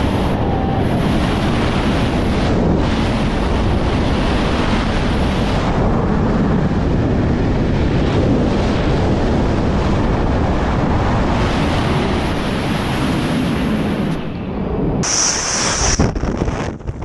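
Wind rushing hard over the camera microphone in wingsuit freefall, a loud, steady roar. It falls away near the end, leaving uneven rustling and buffeting.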